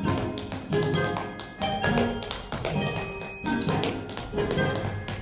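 Tap dancing: two dancers' tap shoes striking the stage floor in quick runs of taps, over accompaniment music.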